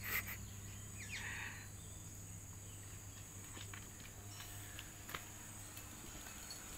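Quiet outdoor ambience with a steady high-pitched insect drone, with a brief rustle about a second in and a few faint ticks.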